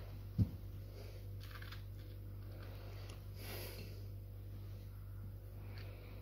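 Steady low hum of a quiet room, broken by one dull low thump about half a second in, with faint soft handling noises as fried potato croquettes are set down on a plate.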